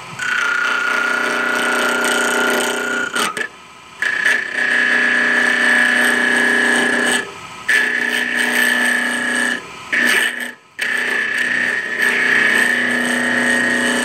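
Wood lathe turning a small acrylic knob blank at about 2400 rpm, a hand-held tool cutting it with a loud, steady high-pitched squeal of tool chatter. The squeal comes in five spells with short breaks between them as the tool comes off the work, a little higher in pitch after the first break. The chatter comes from the work being mounted on a small spindle that is not hardened.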